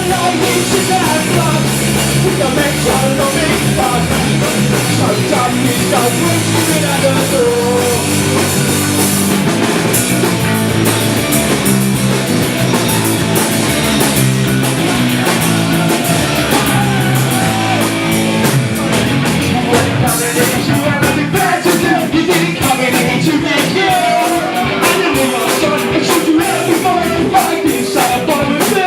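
Live rock band playing a loud, fast punk-style song on drum kit and amplified instruments, with a singer's voice over it. Dense cymbal hits join in about two-thirds of the way through.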